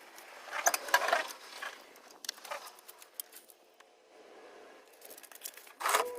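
Irregular small clicks and rattles, like hand tools and a drain plug being handled, with a louder rustling clatter near the end.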